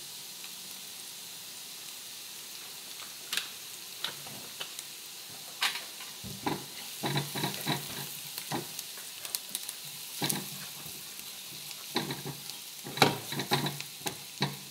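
Onion, ginger and garlic frying with a steady sizzle in a frying pan on a gas hob, while a spatula stirs and scrapes against the pan in irregular clicks that become more frequent in the second half.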